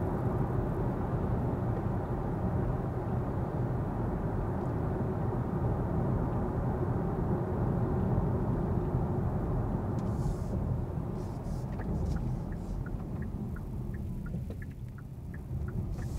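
Road and tyre noise inside the cabin of a Kia EV6 electric car driving at about 50 km/h, easing off as the car slows near the end. A run of quick, light ticks starts about twelve seconds in.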